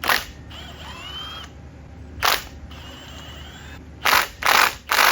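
About five sharp metal knocks on an axle, irregularly spaced, the last three close together, as a stuck axle shaft is being worked loose.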